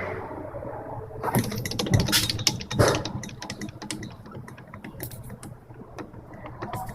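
Suzuki SJ30 Jimny's drivetrain with its two-stroke three-cylinder engine running, overlaid by a series of sharp clicks and knocks, loudest in the first three seconds: the abnormal noise from the front propeller shaft.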